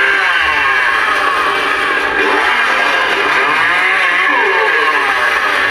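Sound effect from the Spirit Halloween Leatherface animatronic: a recorded chainsaw engine revving up and down over and over, played loud through the prop's speaker.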